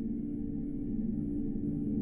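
Ambient drone music: a low, steady sustained drone of held tones, slowly swelling in loudness.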